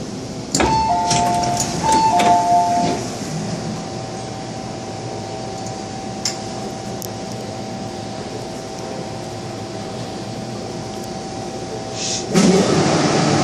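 Two-tone electronic ding-dong chime, a higher note then a lower one, sounding twice about a second apart aboard an MTR Island Line M-Train standing at a station. A faint steady hum follows, and a louder noise starts near the end.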